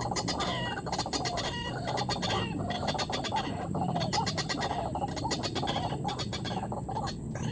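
White-breasted waterhen calling: a fast run of short, repeated croaking notes.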